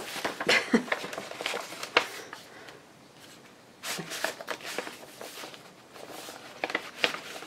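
Paper and craft supplies being rummaged through by hand: rustling and shuffling with scattered light taps, in three bursts with short pauses between.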